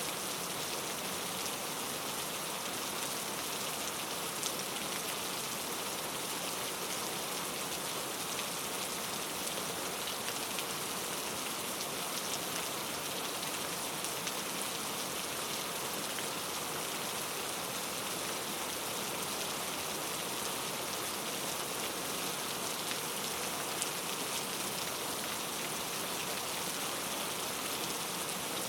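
Steady rain falling on a surface: an even hiss with scattered faint drop ticks and no thunder.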